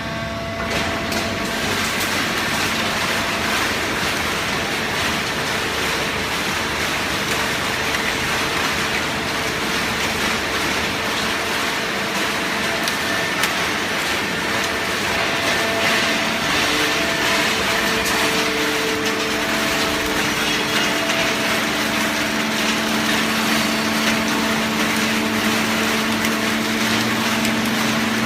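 Fully automatic horizontal hydraulic baler running, its hydraulic pump humming steadily under a continuous rustle and crunch of waste cardboard being pressed. The hum changes pitch about two-thirds of the way through, with a lower tone growing stronger near the end.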